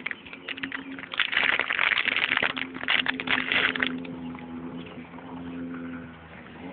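Jet ski engine running steadily, with a loud rush of water or wind noise from about one to four seconds in.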